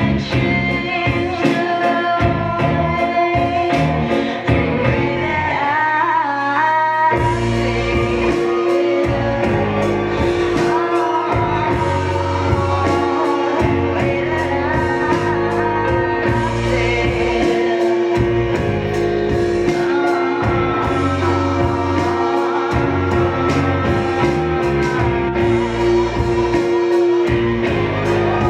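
Performance music with a singer and guitar. About seven seconds in, after a sparser passage, the full band comes back in with a steady beat.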